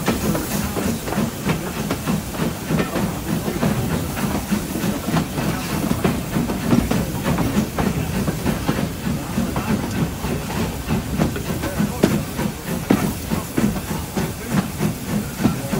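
Lancashire & Yorkshire Railway Class 27 0-6-0 steam locomotive 52322 pulling away with its train, a fast, steady run of exhaust chuffs with hissing steam. Heard from the carriage just behind the tender.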